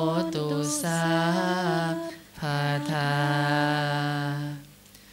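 Voices chanting Pali verses in the slow, drawn-out Thai Buddhist recitation style, holding long notes in two phrases. The chanting stops about a second before the end.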